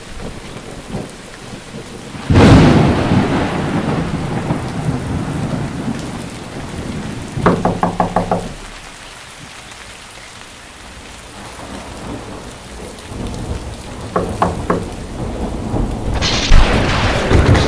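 Thunder over steady rain: a loud crack about two seconds in that rumbles away slowly, and another crack near the end. A short pulsing, buzzing sound comes about halfway through and again briefly later.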